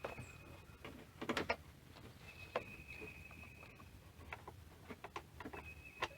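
Faint scattered clicks and taps of a bolt and small hand tools against the metal and plastic of a generator's recoil starter housing as the bottom mounting bolt is worked into place. A thin high steady tone sounds briefly three times alongside.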